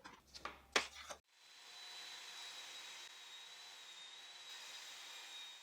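A few light knocks of wood being handled, then a power saw running faintly and steadily with a thin high whine, ripping a board into narrow strips.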